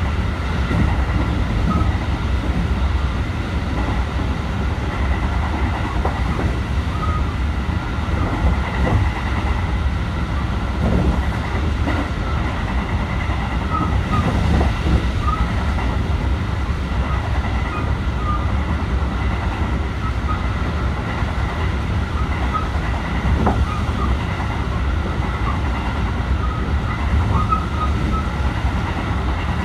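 Interior running sound of a JR 223 series 2000 electric multiple unit at speed: a steady low rumble with a faint steady high tone, scattered knocks, and the clack of a flat spot worn on a wheel.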